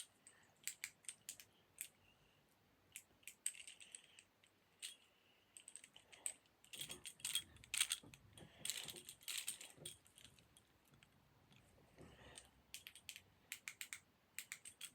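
Small fidget toys, among them a fidget spinner, being handled: light, scattered clicks and clinks, some single and some in quick clusters.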